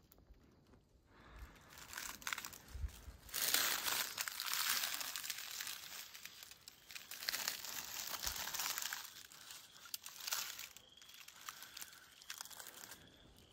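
Dry leaves and brush rustling and crunching as someone moves slowly through them, in uneven waves, loudest a few seconds in.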